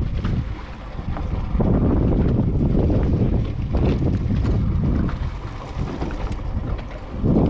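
Wind buffeting the microphone on an open boat at sea, with waves washing against the hull; the noise rises and falls in uneven gusts.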